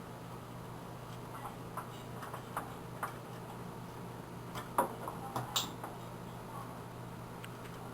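Scattered light clicks and taps of a screwdriver and hands on the metal parts of a desktop computer case while the power supply is being removed, with the loudest clicks about five seconds in, over a steady low hum.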